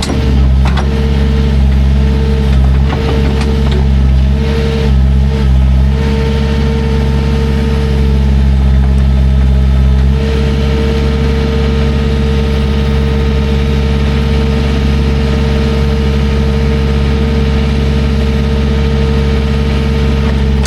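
Diesel engine of a piece of heavy equipment running steadily, with a high whine that keeps cutting in and out for the first few seconds and then holds steady.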